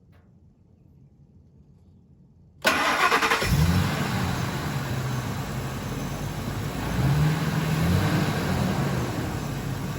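The 5.4-litre V8 of a 2001 Ford F-250 cranked by the starter about two and a half seconds in, catching within a second and settling into an idle that climbs briefly around seven seconds in. It runs smooth with no misfire, the cylinder 5 miss cured by a new coil pack and spark plug.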